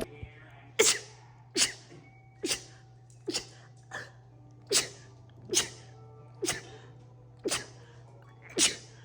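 A person sneezing in a rapid-fire fit: about ten short, sharp sneezes in a row, roughly one a second.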